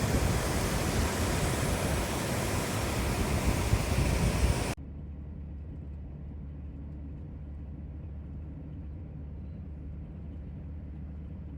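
Waterfall rushing in a loud, even roar of falling water that cuts off abruptly about five seconds in, leaving a quieter, steady low hum.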